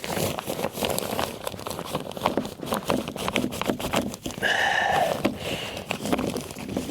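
Scraping, rustling and small knocks as something is worked down inside a wall cavity behind plastic sheeting, with a short pitched vocal sound about two thirds of the way through.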